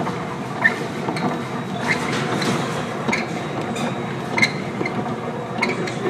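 Container ship pitching into storm waves, heard from inside the bridge: a steady noise of wind and sea with a few scattered sharp clinks and knocks, the loudest about four seconds in.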